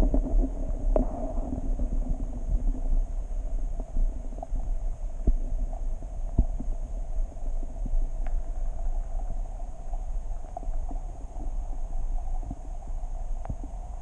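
Underwater sound of a garden pond picked up by a submerged camera: a muffled low rumble with a steady hum and scattered small clicks.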